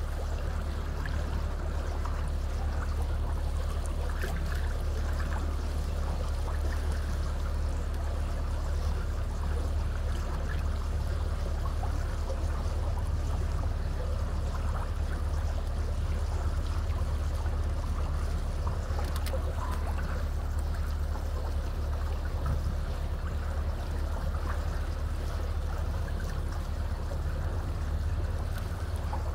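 Water rushing and splashing along the hull of a moving boat as it cuts through the lake, over a steady low rumble.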